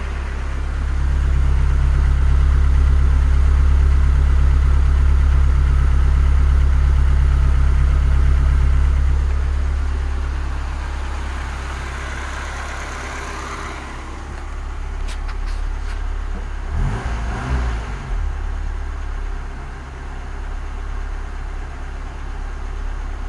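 BMW E30 318i's M10B18 four-cylinder engine idling. It runs louder and steady for about the first nine seconds, then settles to a quieter idle. A few sharp clicks and some uneven low knocks come about two-thirds of the way through.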